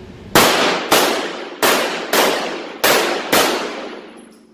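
Six 9mm pistol shots from a Glock 34, fired at an even pace about 0.6 seconds apart, each followed by a long echo off the walls of an indoor range.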